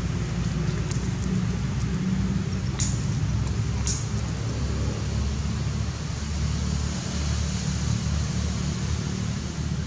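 Steady low mechanical rumble, with two brief high clicks about three and four seconds in.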